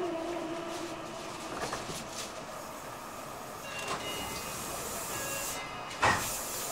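Meitetsu 2300 series electric train heard from inside the car: the traction motors' whine finishes a falling glide, holds a steady pitch, then fades within the first two seconds as the train slows, over running noise. About six seconds in comes a single sudden loud clunk.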